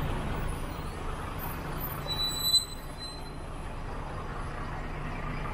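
Steady low rumble of street traffic, with one short, high-pitched squeal about halfway through.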